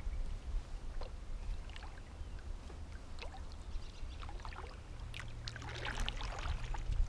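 Water lapping and trickling around a rowed fishing boat drifting on a river, with scattered small splashes and knocks that are thickest about five to six seconds in.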